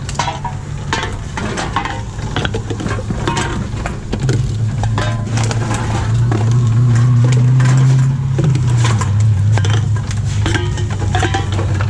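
Empty drink containers clattering and knocking as they are fed one after another into a reverse vending machine, over the steady hum of the machine's motor. The hum grows louder about four seconds in and drops back a little after eight seconds.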